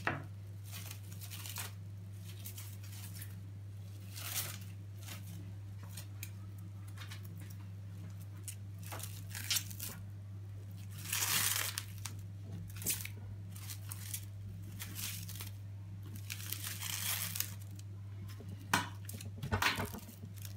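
Plastic cling film crinkling and rustling in irregular bursts as a sheet is spread over soft chocolate cake dough and pressed down by hand, with a steady low hum underneath.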